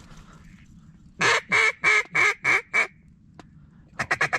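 Hen mallard-style quacking: six loud quacks in a row, falling in pitch, then a quick run of short chattering notes near the end.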